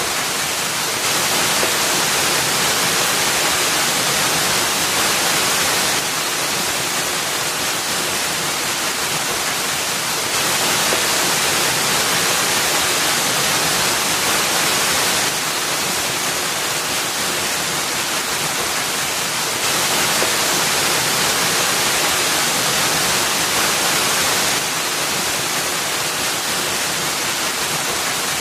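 Waterfall splashing into a pool: a steady rush of falling water whose level shifts slightly up and down every few seconds.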